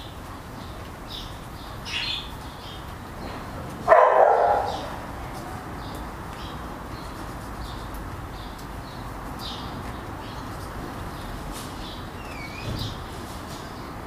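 A dog barks once, loudly, about four seconds in, over frequent short bird chirps and a steady background hiss.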